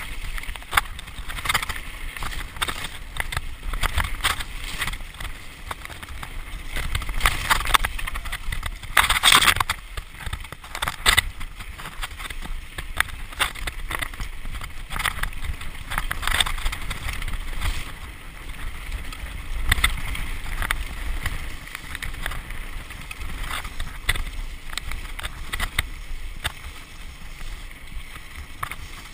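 Mountain bike ridden fast down a rough dirt forest trail: tyres rolling over dirt and roots, with frequent clattering knocks and rattles from the bike, a loud cluster of them about nine seconds in. A low rumble of wind on the microphone runs underneath.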